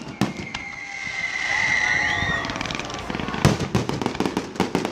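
Fireworks display: a long whistle falling slightly in pitch, with a few sharp bangs near the start. About halfway through this gives way to a rapid run of crackling reports with one louder bang.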